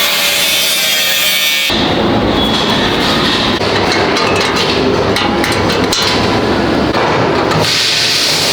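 Hand assembly work on a refrigerated display showcase: a short squeaky scraping, then a run of irregular knocks and taps over a noisy workshop background. The sound changes abruptly twice, about two seconds in and near the end.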